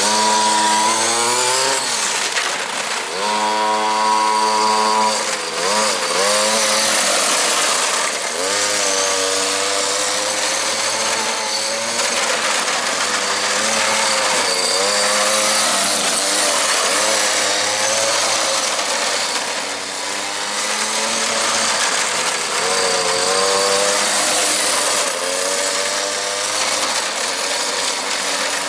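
Small two-stroke engine of a radio-controlled car running and revving, its pitch rising and falling over and over as the throttle is worked.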